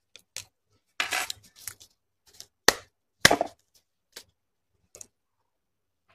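Scattered short clicks, knocks and wet squishes of a small spoon digging marrow out of a braised beef bone and gloved fingers handling it, with two sharper clacks a little under halfway through.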